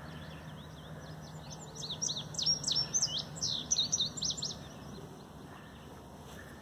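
A songbird singing a quick jumbled run of high chirps for about three seconds, starting about two seconds in, with a few faint calls just before.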